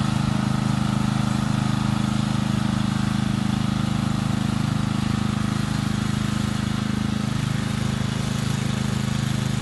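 Lawnmower engine running steadily at an even speed.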